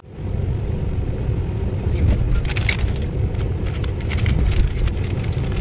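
Car moving along a road, heard from inside the cabin: a steady low engine and road rumble, with scattered short clicks and rattles.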